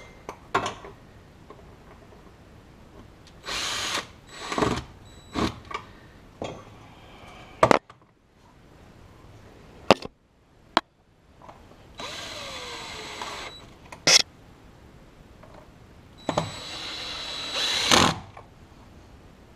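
Cordless drill with its clutch set light, driving screws in several short runs, the two longest in the middle and near the end, each about a second and a half with a steady whine. Sharp clicks and knocks of parts being handled come between the runs.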